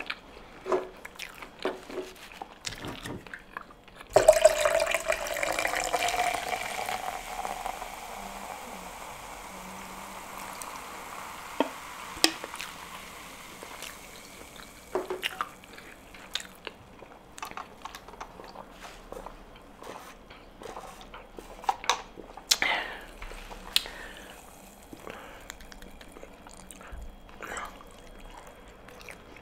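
Close-up eating sounds of a person chewing fried chicken: soft wet mouth clicks and smacks scattered throughout. About four seconds in, a sudden sound of running or pouring liquid starts and fades away over roughly ten seconds.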